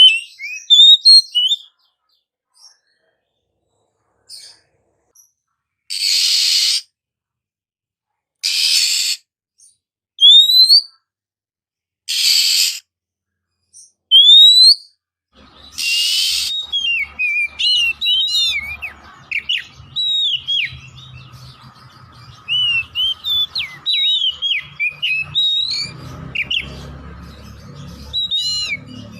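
Oriental magpie-robin (black-bellied 'kacer poci' form) calling: in the first half, short harsh rasping calls alternate with single sharp rising whistles, with silent gaps between them. From about midway it breaks into continuous, quickly varied whistled song over a faint low hum.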